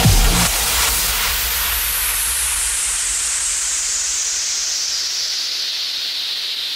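A falling white-noise sweep, an electronic dance music transition effect, gliding steadily down in pitch after the track's bass beat drops out about half a second in.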